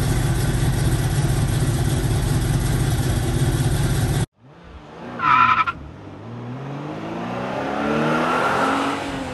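Chevrolet 402 big-block V8 in a 1954 Chevrolet pickup, idling steadily; it cuts off abruptly about four seconds in. A short chime and a sweeping sound effect with rising and falling tones follow.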